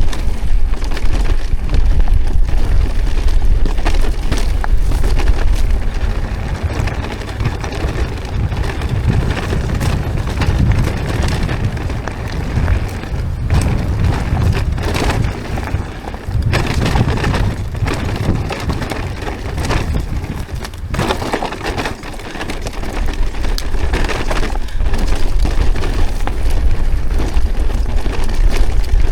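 Heavy wind buffeting on the microphone with frequent cracks, knocks and rattles, as from a bicycle riding over rough ground.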